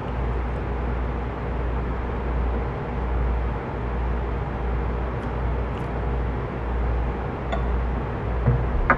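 Steady low background rumble of room noise, with a couple of light clicks near the end.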